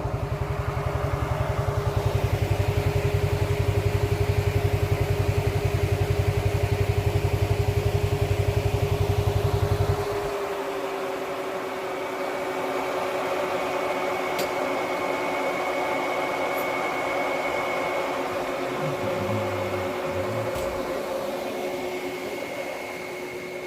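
ATV engine running with a fast low throb and a steady whine. About ten seconds in the throb drops away, while the whine carries on.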